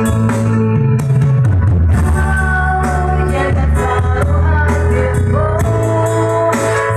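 A woman singing through a microphone and PA over an electronic keyboard (organ) accompaniment with a strong bass line, holding some notes with a wavering vibrato.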